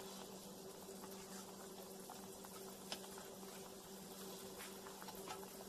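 Soy sauce braising liquid bubbling faintly in a wok around a whole chicken, over a steady low hum, with a light tap about three seconds in.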